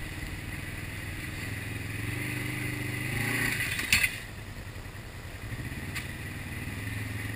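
Polaris RZR side-by-side's engine running at low revs as it crawls down a rocky trail, the note rising briefly with throttle a few seconds in. A sharp knock sounds about four seconds in, with a lighter click about two seconds later.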